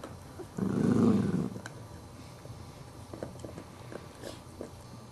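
Maltese dog growling for about a second, a warning to the puppy to keep off his bone. Then quieter scattered clicks of him gnawing the bone.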